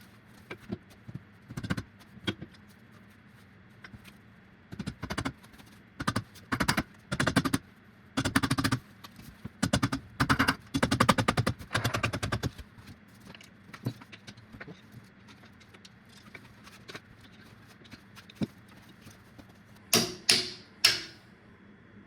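Hand tools working on metal parts of a BMW E46 rear subframe during reassembly: scattered clicks, then bursts of rapid clicking through the middle, then three sharp ringing metal clanks near the end.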